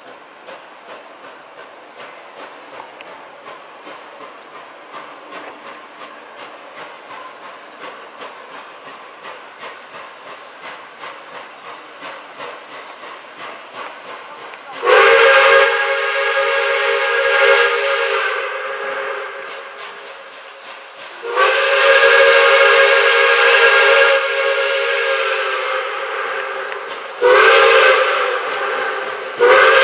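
Pere Marquette 1225, a Lima-built 2-8-4 Berkshire steam locomotive, working toward the camera with rhythmic exhaust beats, then sounding its steam whistle in the grade-crossing signal: two long blasts, a short one, and the start of the final long one as it nears the road crossing.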